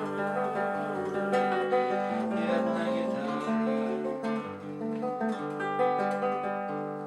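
Acoustic guitar played solo, plucked notes and chords ringing over one another: the instrumental close of a bard song, getting quieter toward the end.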